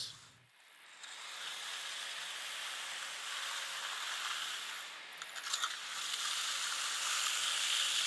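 Wide Fresno trowel on a long pole scraping steadily across fresh concrete, smoothing out the lines left by the bull float. It is pushed out across the slab, then after a brief lull about halfway through it is pulled back.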